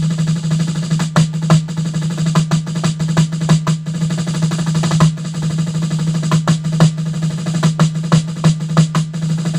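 Snare drum played without a break: buzzing rolls cut through by frequent loud accented strokes, the roll-and-accent figure of a rudimental snare solo.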